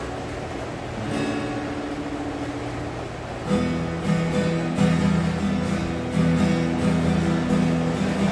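Steel-string acoustic guitar strummed in chords, getting louder about halfway through.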